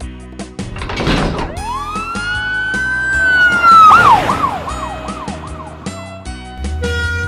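Police car siren sound effect: a short rush of noise about a second in, then one long rising wail that holds and dips, then a quick run of short up-and-down yelps, over background music.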